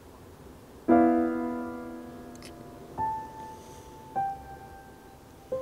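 Sparse piano music: a chord struck once and left to ring and fade, then two single notes a little over a second apart, the second slightly lower.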